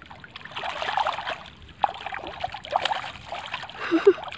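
Water trickling and splashing, with small irregular knocks, as a wire-mesh fish trap is handled in shallow, reedy water.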